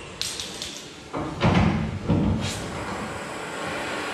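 Cutting torch burning through rusted, salt-corroded bolts on a grain-trailer hopper door: a steady hiss and rush of the flame, surging louder a little after one second and again around two seconds in as the cut goes through.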